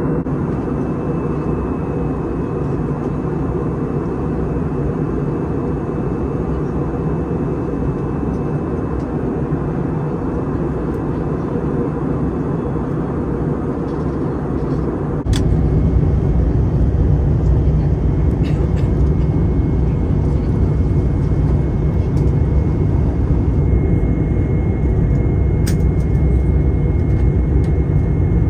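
Airliner cabin noise: a steady engine and airflow rumble, which turns suddenly louder and deeper about halfway through and stays that way.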